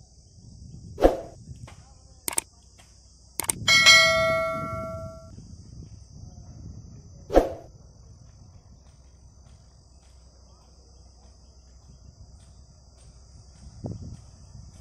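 Several sharp metallic knocks, the loudest about four seconds in ringing on like a struck bell for over a second before dying away, over a steady high-pitched insect buzz.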